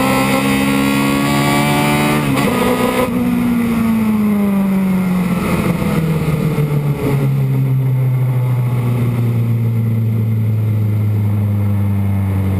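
Osella PA9/90 sports-prototype race car's engine heard from the onboard camera, revving hard with a quick gear change about two seconds in. About three seconds in the throttle comes off and the engine note falls away, settling into a steady low run.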